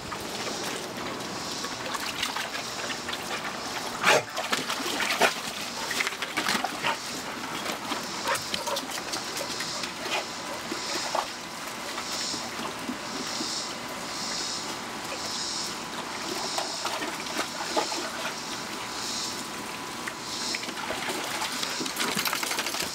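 Dogs moving about and playing on a wooden deck: paw steps and scuffling on the boards, with a sharp knock about four seconds in and some splashing from the water tub. A high chirp repeats about once a second through the second half.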